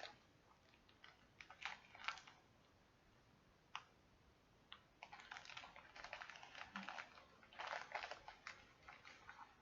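Faint rustling and clicking of small plastic bags of diamond-painting drills being handled: a few light clicks, then about four seconds of crinkly handling noise.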